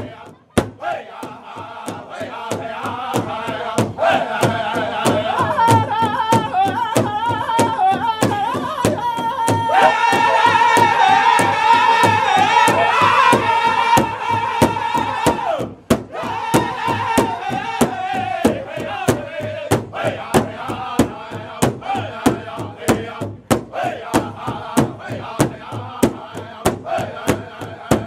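Powwow drum group: several men singing together in high voices over a large hand drum struck in a steady, even beat. The singing is loudest in the middle and breaks off briefly around sixteen seconds in, then the drum and voices carry on.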